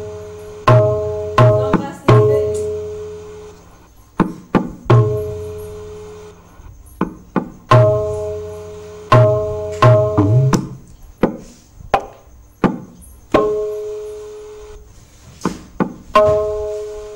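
A tabla playing the Ektaal theka in very slow (vilambit) tempo. Clusters of ringing strokes on the treble drum come with deep, sustained booms from the bass drum, with sparser, quieter strokes in the gaps between them.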